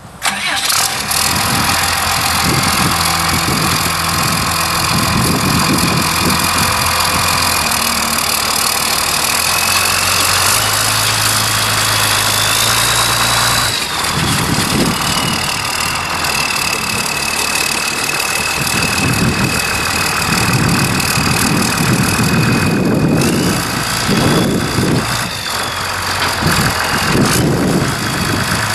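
Cummins six-cylinder diesel engine of a Tucker Sno-Cat tracked groomer running as the machine drives and turns. Over the engine there is a high whine that rises and falls in pitch, and from about halfway through an uneven low rumble.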